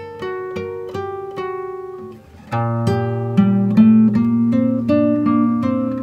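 Background music: a plucked acoustic guitar picking a melody, growing louder and fuller with held low bass notes about two and a half seconds in.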